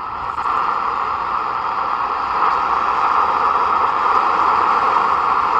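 Shortwave static hissing from the speaker of a Toshiba F11 analog portable receiver while the 16-metre band is tuned between stations. The hiss is steady and loud, strongest in the middle of the range, and grows a little louder about two seconds in.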